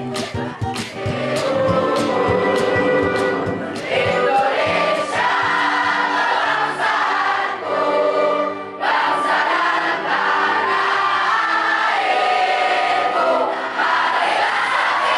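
A choir of voices singing a song together, with a short break in the singing about nine seconds in.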